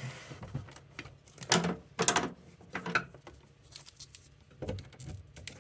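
Irregular clicks and clunks of an electric deep fryer's parts being handled and fitted together, with a sharp knock about a second and a half in and several more through the rest.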